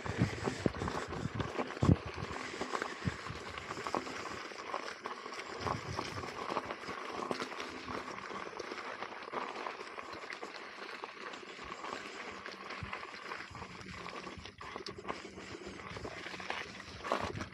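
Electric unicycle's tyre rolling over a rough, stony dirt path: a steady crunching hiss with irregular knocks and clatters, busiest about two seconds in and near the end.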